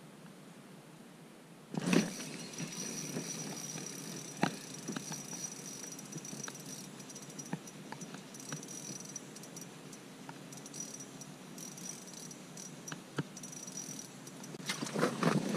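Spinning reel being cranked from about two seconds in: a thin high whine from the turning reel with small clicks and ticks from the handle and line. Louder rustling and knocks of clothing and gear near the end.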